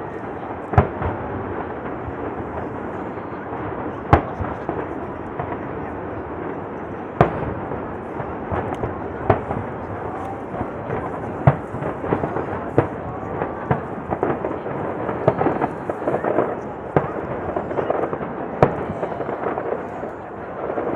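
Aerial fireworks shells bursting in sharp booms, one every one to three seconds, over the chatter of a crowd.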